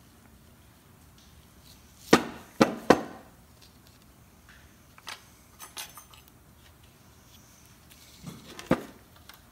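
Metal brake caliper bracket knocking against a wooden workbench: three sharp knocks in quick succession about two seconds in, a few light metal clicks from the pad clips a few seconds later, and one more knock near the end.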